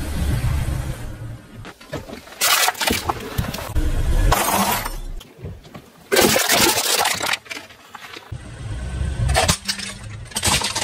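A car tyre rolling over and crushing small objects, among them aluminium drink cans: a series of short, loud crunching bursts, about five in all, over the low rumble of the car's engine running.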